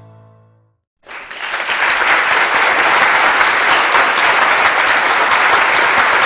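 The last of the background music dies away, and after a moment of silence an applause sound effect begins about a second in: dense clapping, holding steady.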